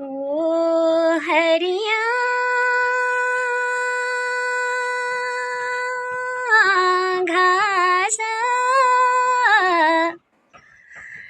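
A high voice singing alone with no instrument. It holds one long note for several seconds, then moves into wavering, ornamented phrases and breaks off shortly before the end.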